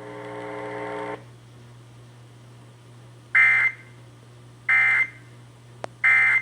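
Three short, loud bursts of Emergency Alert System digital data tones, about a second and a quarter apart: the SAME end-of-message code that closes the alert. Before them a steady held tone stops about a second in, and a low hum runs underneath.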